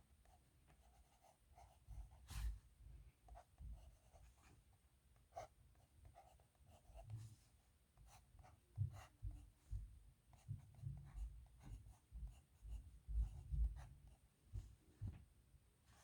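Steel dip nib pen scratching across paper in short, separate strokes, faint and irregular, with soft low bumps in between that grow more frequent in the second half.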